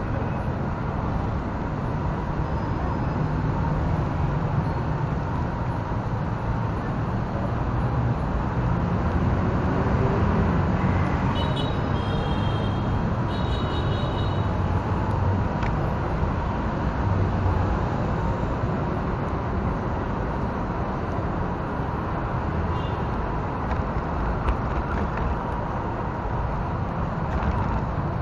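On-board sound from a Tamiya Toyota Land Cruiser 40 RC car rolling over pavement: a steady rumble of its electric drivetrain and tyres, with a faint steady whine, mixed with city traffic noise. A few brief high chirps come about halfway through.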